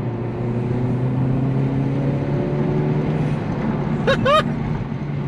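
Honda Civic hatchback's 1.5-litre turbocharged four-cylinder pulling in third gear with a PRL short ram intake, its pitch slowly rising, heard from inside the car. About three seconds in the throttle is lifted and the engine note drops away with a faint whoosh, the intake 'sneeze'.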